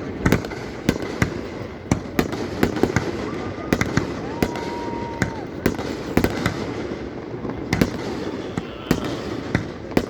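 Fireworks going off, with many sharp bangs in irregular quick succession over a continuous background rumble. A steady tone sounds for about a second some four seconds in.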